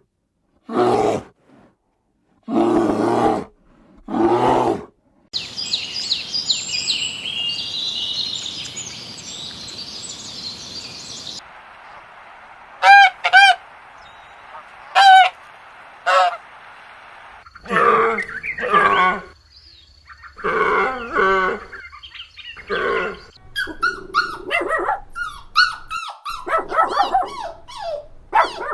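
A rapid succession of different animal calls, one kind after another with abrupt changes between them, including high chirping bird calls and repeated honking calls.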